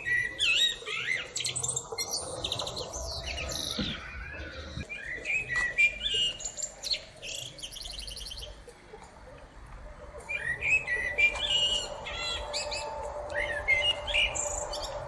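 A small songbird singing a long, varied song of quick high chirps, rapid trills and warbled notes, with a brief lull midway.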